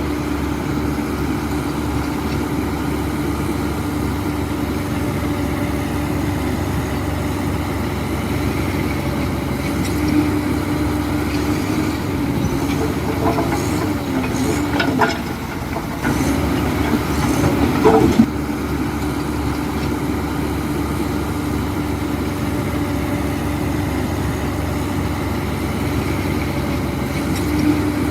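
Heavy diesel construction machine running steadily with a held engine note. In the middle the engine pitch dips and rises under load, with a few sharp metallic clanks and squeals, the loudest shortly past halfway.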